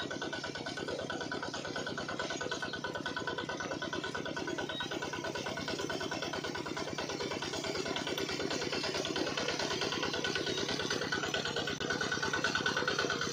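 Miniature engine-style toy water pump running steadily, with a fast, even pulsing beat while it pumps water; it gets slightly louder toward the end.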